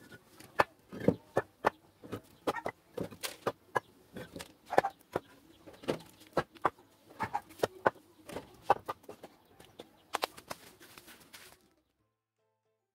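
Old bricks being dropped one by one into a metal wheelbarrow tray: a run of irregular knocks and clunks, brick on metal and brick on brick, stopping near the end.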